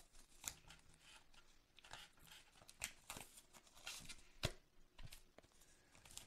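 Fingernails picking and scratching at the plastic shrink wrap on a hardcover book: faint, scattered crinkles and small ticks, a few times.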